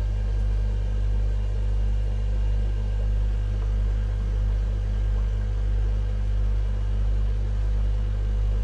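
Steady low hum of aquarium fish-room equipment, constant and unchanging.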